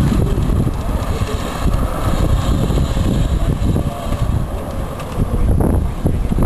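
Wind buffeting the microphone: a heavy, steady low rumble, with stronger gusts shortly before the end.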